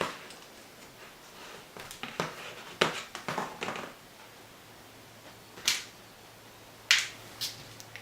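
A laptop's plastic case being handled and opened, heard as scattered sharp clicks and snaps, with a handful of separate taps spread over several seconds.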